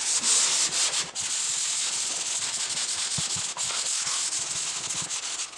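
Hand sanding of dried drywall joint compound with a Gator foam sanding block and 120-grit paper: steady rasping strokes with a couple of brief pauses. The paper is feathering the ridges and edges of a drywall patch down toward the paper tape.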